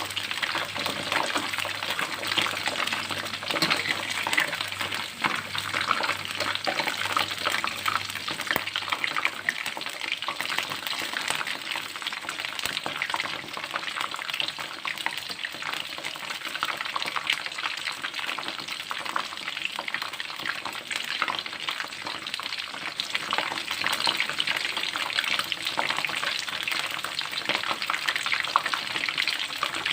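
Flour-battered shrimp deep-frying in hot oil: a steady crackling sizzle.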